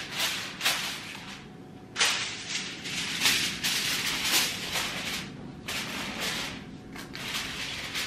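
Aluminum foil crinkling in a run of irregular crackling bursts as it is pressed down and crimped over the rim of a metal baking pan and a loose sheet is crumpled in the hands.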